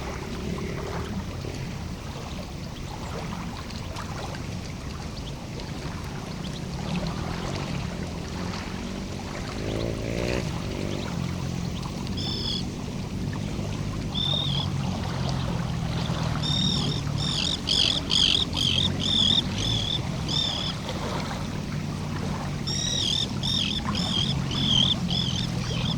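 Lakeside ambience with a small bird calling high chirping notes. The calls start about halfway through and come in two quick runs of repeated notes near the end, over a steady low background hum.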